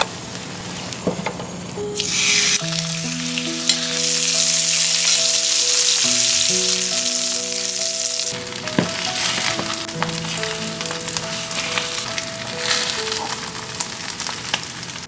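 Food sizzling in hot oil in a pan, loudest from about two and a half to eight and a half seconds in, over soft background music.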